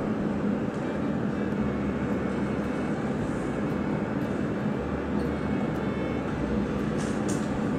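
A steady, even mechanical roar with a low hum running under it and a few faint clicks.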